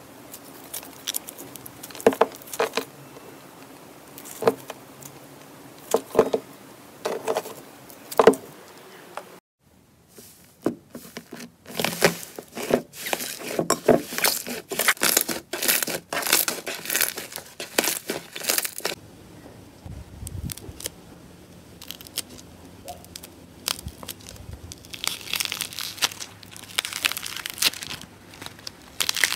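Hand-worked slime being squeezed, kneaded and pressed: irregular wet squishing with sharp clicks, pops and crackles. The sound breaks off briefly about nine seconds in. It is densest in the middle, while a pearly slime is pressed into a bowl, and again near the end, with a textured rainbow slime.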